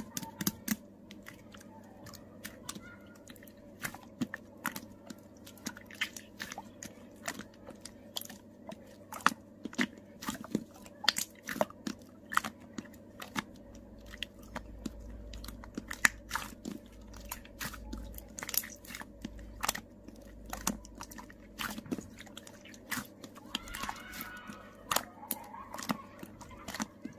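Purple slime being squished and poked by hand, giving irregular sharp crackling clicks and pops.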